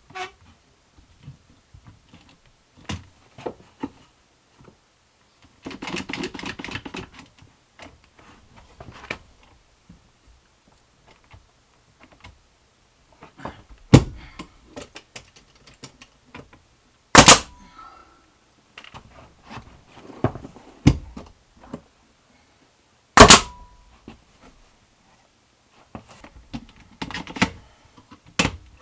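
Loud, sharp knocks on wood, about five of them spread out, among quieter scuffs and taps, as pine tongue-and-groove boards are fitted and fastened to a wall. A short rough rasping noise comes about six seconds in.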